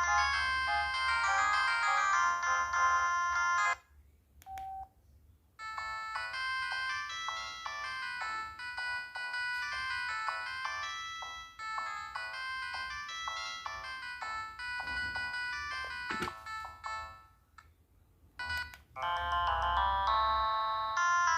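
ZTE X175 mobile phone playing its built-in ringtone melodies one after another. One tune stops about four seconds in, and a short single tone follows. A longer melody of quick notes runs until near the end, when another ringtone starts.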